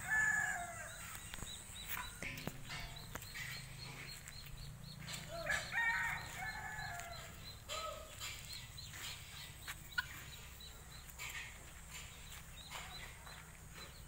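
Poultry calling: two bouts of harsh calls with falling pitch, one at the start and one about five and a half seconds in. A steady, fast, high ticking runs underneath.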